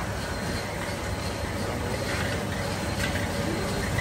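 Metal lathe running steadily with a clutch plate spinning in its chuck, while a gloved hand presses against the plate's rim to hand-finish it, throwing sparks.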